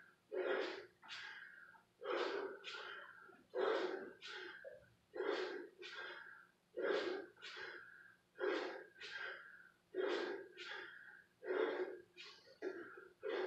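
A man breathing hard in time with kettlebell swings: a forceful breath out on each swing and a quicker breath in after it, repeating about every second and a half.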